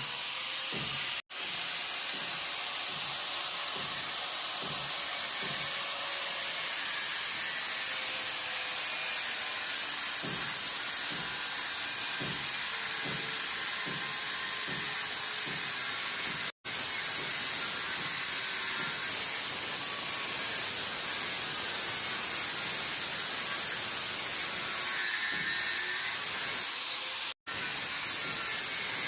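Angle grinder's abrasive cut-off disc cutting through an iron rod: a loud, steady, hissing grind, heavy in the highs. It is broken by three brief gaps.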